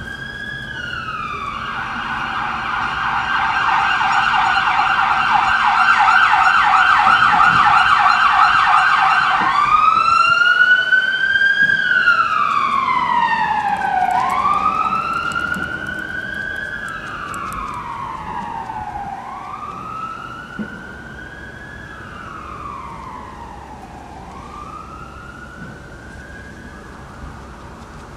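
Emergency vehicle siren: a slow rising-and-falling wail switches to a fast yelp for about eight seconds, then goes back to the wail. It is loudest during the yelp and then fades away, each wail cycle quieter than the last.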